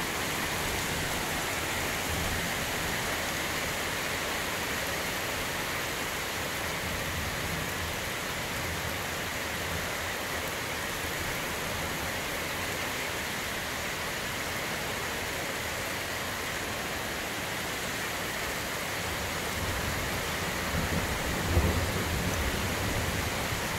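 Heavy rain pouring steadily in a thunderstorm, with a low rumble of thunder near the end.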